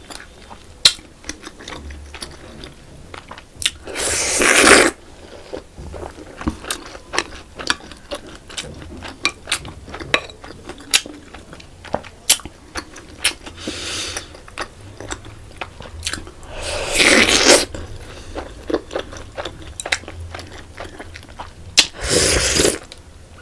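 Close-miked eating of soft Indian sweets: wet chewing with many sharp mouth clicks. Four longer, louder noisy sounds break in.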